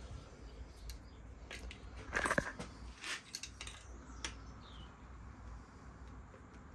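Light clicks and small knocks of hard engine parts being handled by hand, with a short cluster of rattling clicks about two seconds in and single clicks about a second and two seconds later.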